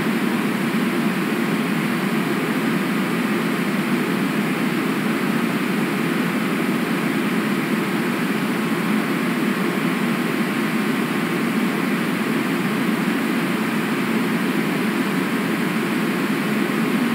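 Steady, unbroken rushing noise picked up by an outdoor webcam microphone, with no distinct events.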